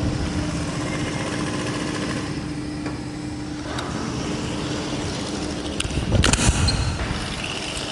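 Steady machine hum with a short, loud burst of knocking and rattling about six seconds in.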